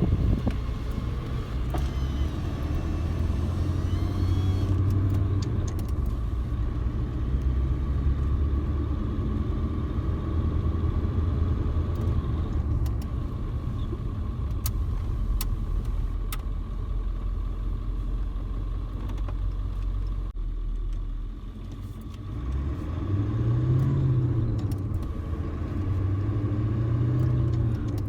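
A 1997 Ford F-250's 7.3 PowerStroke V8 turbo diesel running, with a low steady drone under a thin turbocharger whistle. About twenty seconds in the engine note drops, then climbs again.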